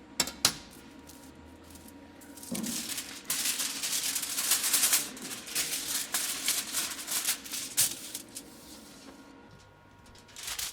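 TIG welding arc on thin aluminium foil, crackling and sputtering unevenly for several seconds, after two sharp clicks near the start.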